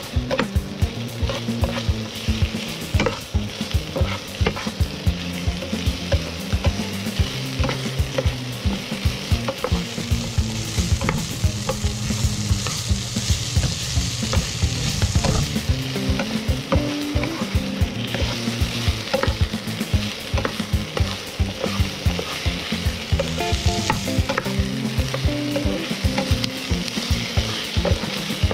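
Pork cubes and chopped onion sizzling as they brown in a nonstick frying pan, with a spatula stirring and scraping them and clicking against the pan many times a second. The sizzle swells for a few seconds in the middle.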